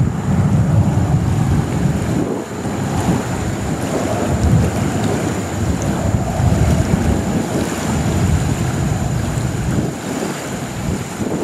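Wind buffeting the microphone in uneven gusts, a loud low rumble, with a faint steady high-pitched whine above it.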